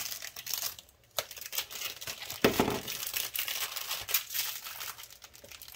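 Protective plastic film being peeled off a stainless steel shelf, crackling and crinkling, with a thump about halfway through.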